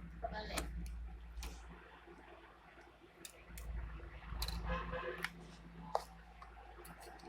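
Handling noise: scattered sharp clicks and rustling, with a low rumble through about the first two seconds and again around four to five seconds in.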